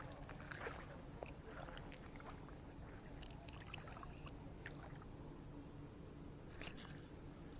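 Faint handling noises from a spinning fishing reel: light scattered clicks and rustles, a little louder near the end, over a faint steady hum.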